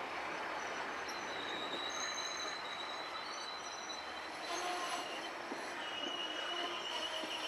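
Amtrak Amfleet passenger coaches rolling past at speed: a steady rush of steel wheels on rail, with thin, high-pitched wheel squeals coming and going over it.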